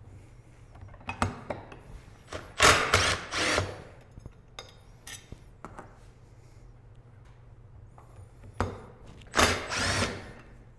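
Cordless impact driver running in two bursts of about a second each, a few seconds apart, backing out the T30 Torx cover screws of a CVT primary clutch held in a spring compressor. Light clicks and taps of screws and tools being handled come between the bursts.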